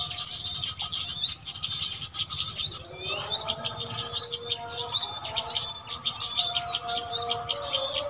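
A recorded lure mix of many small birds' calls played through a speaker: dense, overlapping quick high chirps and trills, with a few longer, lower whistled notes running under them.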